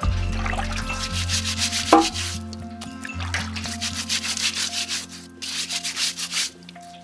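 Rapid, repeated rubbing strokes against a surface that stop about six and a half seconds in, with a single sharp knock about two seconds in. Background music plays underneath.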